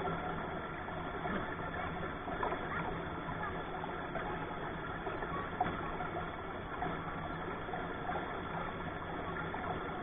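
Shallow rocky stream rushing steadily over stones.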